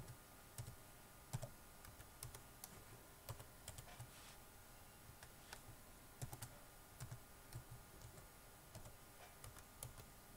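Faint typing on a computer keyboard: irregular key clicks with short pauses between runs.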